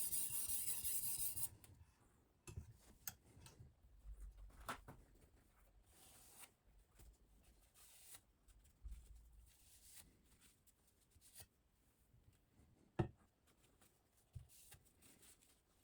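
Silicon carbide oil stone rasping along a steel knife edge in a guided sharpening system, stopping abruptly about a second and a half in. Faint handling clicks and taps follow, with one sharp click near the end.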